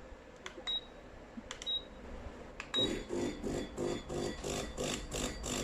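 Buttons on an espresso machine's control panel being pressed, three short clicks each answered by a brief high beep. Near the end the machine starts a rhythmic pulsing hum, about three pulses a second, as it preheats.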